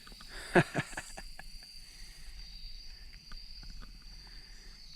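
Insects, crickets by their sound, trilling in a steady high tone. About half a second in come two sharp knocks close together, the loudest sounds, followed by scattered faint clicks.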